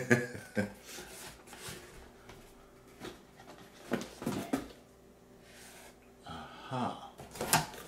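A man's breathy laughter and snorts fade out, followed by cardboard rustling and scraping as a boxed figure is pulled out of a shipping carton, with a few short vocal grunts.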